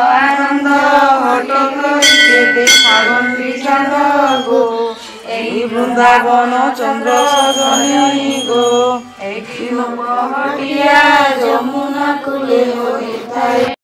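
Hindu devotional mantra chanted to a melody by one voice, in long wavering held notes with barely a pause.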